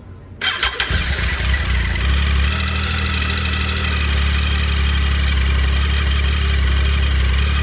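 2016 Triumph Tiger XR motorcycle's three-cylinder engine started on the electric starter about half a second in, catching at once and settling into a steady idle on its first run after an oil change.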